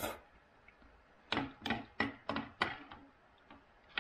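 A person eating soup with a spoon: the tail of a slurp right at the start, then a quick run of five sharp clicks, about three a second, beginning a little over a second in.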